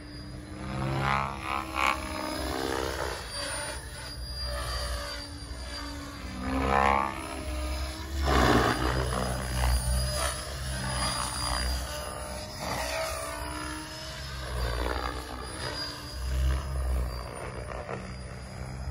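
Electric Logo 550 RC helicopter in flight: the rotor and motor whine keeps rising and falling in pitch and loudness as the model climbs, dives and passes by, with loud surges about 7 and 8.5 seconds in.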